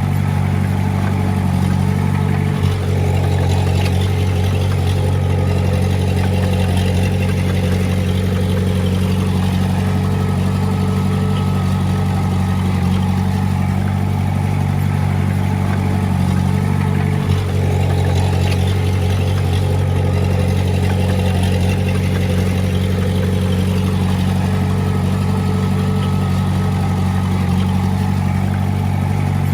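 Heavy-equipment diesel engine running steadily at a constant speed, with two brief momentary dips in level about three seconds and seventeen seconds in.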